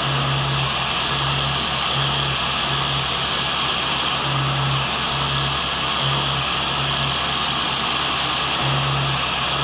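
Cincinnati tool and cutter grinder running, its wheel grinding a carbide blank as the table is cranked back and forth. A steady hiss and hum, with a low hum that pulses on and off irregularly about once or twice a second.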